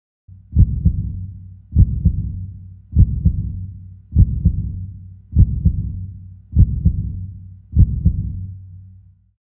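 A deep, regular thumping beat: seven heavy double thumps about 1.2 seconds apart, each dying away before the next, stopping shortly before the end.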